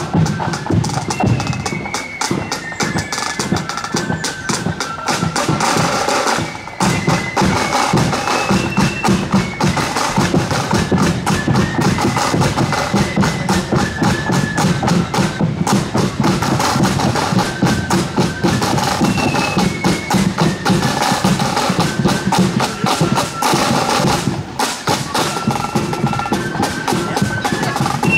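Marching flute band playing a tune: a high, shrill melody carried by flutes over rapid snare-drum rolls and drum beats, with a short break in the playing about six and a half seconds in.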